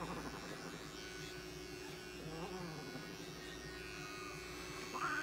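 Small electric pet hair clipper running with a steady buzz as it shaves matted fur from a long-haired cat's belly.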